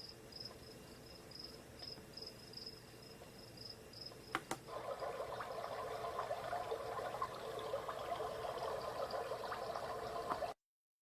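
Built-in nature sounds from a wake-up light alarm clock's small speaker: faint high cricket-like chirping, two sharp clicks about four seconds in, then a steady running-water sound that cuts off abruptly near the end.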